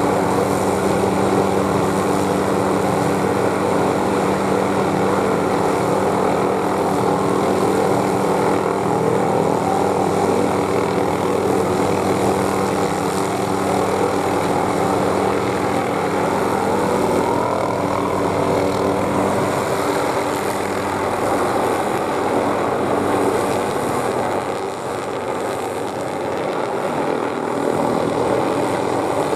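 Hughes 500E (MD369E) helicopter hovering close by: the steady drone of its turboshaft engine and five-bladed main rotor. A steady low tone in it fades about two-thirds of the way through, and the sound softens slightly near the end.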